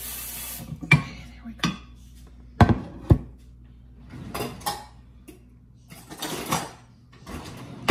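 Kitchen clatter: a short rush of tap water at first, then sharp knocks and clinks of a glass baking dish and utensils on the countertop, loudest about three seconds in.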